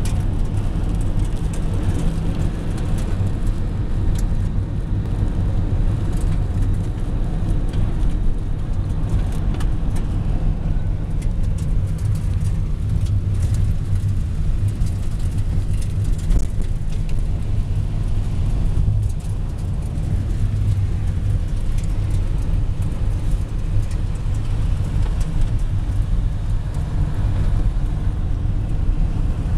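Campervan driving along a mountain road, heard from inside the cabin: a steady low rumble of engine and road noise, with a few light clicks scattered through it.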